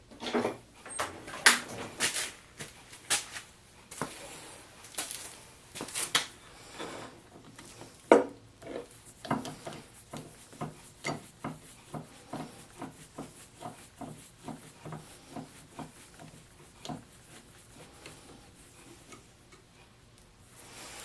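Metal clinks and knocks from the parts of a Wilton Bullet vise being handled and taken apart, with a run of light, even ticks about two a second through the middle.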